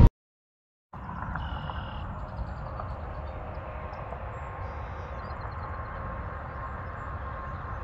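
A brief silence, then a steady outdoor hum of distant highway traffic, with a few faint high chirps over it.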